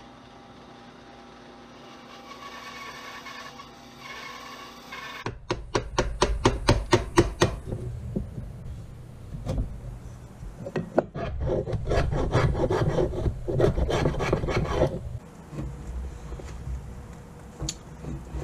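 A bandsaw runs with a steady hum as it cuts a small wooden block. About five seconds in, quick rhythmic scraping strokes on wood follow in runs of several strokes a second, the longest lasting about five seconds.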